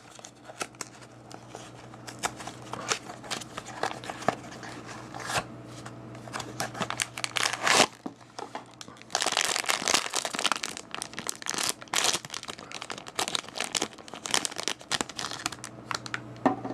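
A small cardboard blind box being opened by hand and the wrapping inside crinkled and torn open: a long run of irregular rustles and crackles, busiest about nine to twelve seconds in, over a faint steady low hum.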